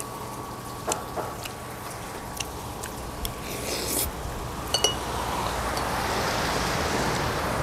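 Light clinks and taps of spoons and bowls at a shabu-shabu table, with a brighter ringing clink a little before five seconds in and a short hiss just before it. Over the last couple of seconds a steady rushing noise builds up.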